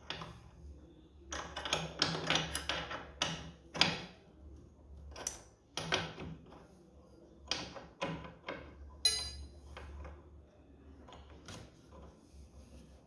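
Scooter's plastic floorboard side panel being flexed and shifted by hand, giving irregular plastic knocks, clicks and rubbing, with a brief ringing clink about nine seconds in.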